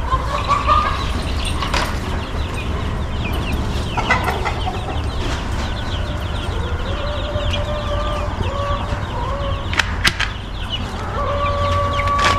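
A brood of two-week-old meat chicks peeping together: a dense chatter of short, falling peeps, with a few longer, held calls standing out. There are two sharp clicks about ten seconds in.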